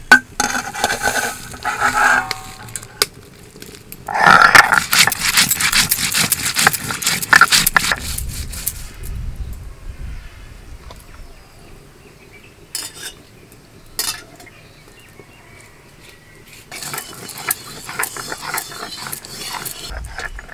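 Whole spices (fennel, cumin, coriander seed and dried red chillies) tipped out of a steel plate and ground on a stone sil-batta, with a few seconds of rapid, even scraping strokes of stone on stone. Then two sharp knocks, and near the end steel-bowl clinking and rustling as turmeric-coated fish are handled in the bowl.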